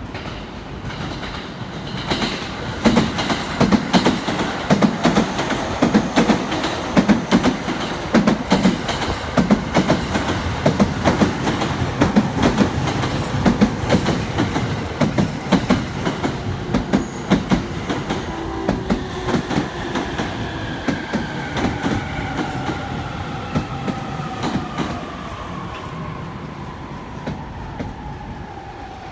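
E231-series electric train running into the station, its wheels clacking rhythmically over the rail joints. From about two-thirds of the way through, the traction motors' whine falls steadily in pitch as the train brakes to a stop.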